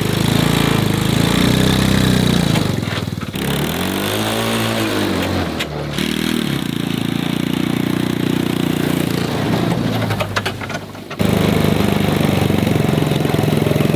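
Small gasoline engine of a kids' ride-on mini Jeep running as it drives, pulling a loaded trailer. Its pitch rises and falls once about four seconds in, and the sound changes abruptly three times.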